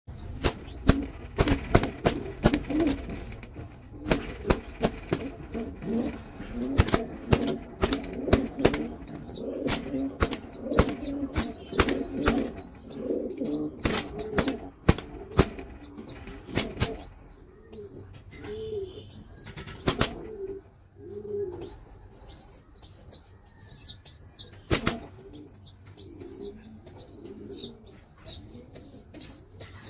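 Domestic pigeons cooing, with many sharp clicks and taps in the first half. Later the sound quietens and a run of short, high chirps repeats again and again.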